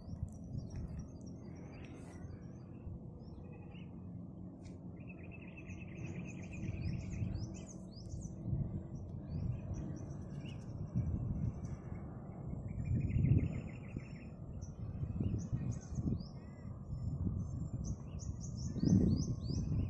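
Small birds calling in the mangroves: quick series of short, high, falling notes and two trilled calls of about a second and a half each, over a low, uneven rumble that swells near the middle and near the end.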